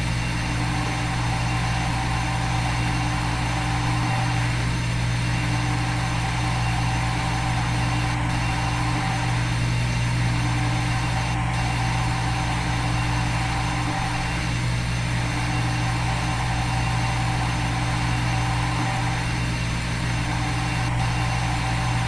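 Steady machine hum of a simulated CNC milling spindle. It repeats in an even loop, with a slight dip in the low end about every five seconds.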